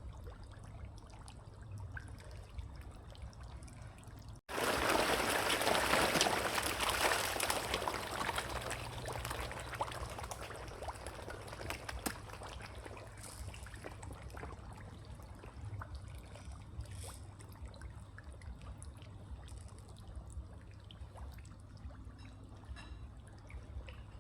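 Water trickling over a steady low hum. About four seconds in there is a sudden cut, then a loud rush of splashing water that slowly dies down, with scattered small clicks.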